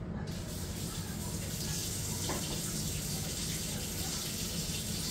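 Kitchen tap turned on just after the start and running steadily, over a low steady hum.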